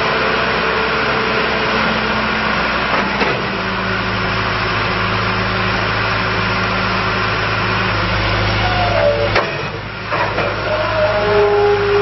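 John Deere 310SG backhoe loader's diesel engine running steadily, its note shifting about three seconds in. Near the end come short wavering whines and a brief dip in loudness.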